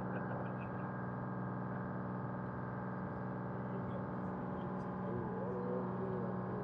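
Charter fishing boat's engine running steadily under way: a constant droning hum that holds one pitch.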